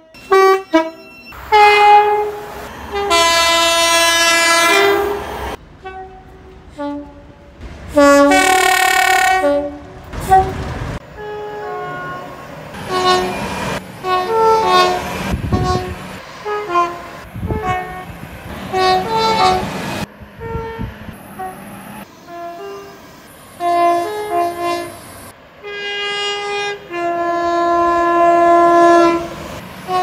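Train horns from a succession of British trains, one sounding after another: short toots and longer blasts, several of them two notes, high then low, with train rumble between some of them. The loudest, longest blasts come a few seconds in, near the middle of the first third, and near the end.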